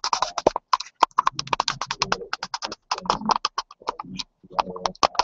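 A man's voice broken up into rapid clicks and short fragments with brief dropouts, the choppy sound of speech over a stuttering live video-call stream.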